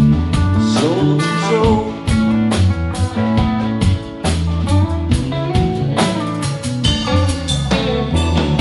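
Live band playing an instrumental passage: electric guitars over bass guitar and a steady drum-kit beat, with no singing.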